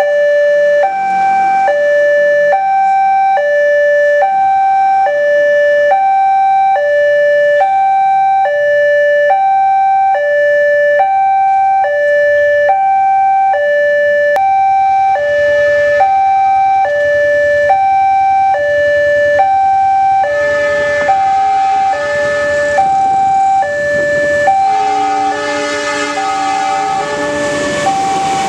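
Railway level-crossing electronic warning alarm sounding a steady two-tone alternation, low then high, about one cycle a second, signalling that a train is coming. From about two-thirds of the way in, the noise of the approaching train rises underneath it.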